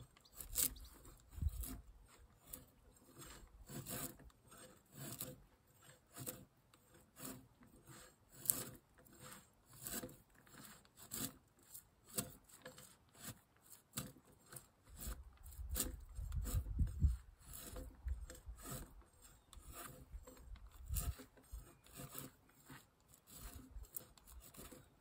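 Repeated rasping strokes of a hand tool scraping or cutting wood, unevenly spaced at about one a second, with a low rumble about two-thirds of the way through.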